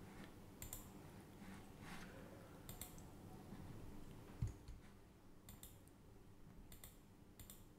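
Faint, scattered clicks of a computer mouse and keyboard, a few at a time, over near silence, with one soft thump about four and a half seconds in.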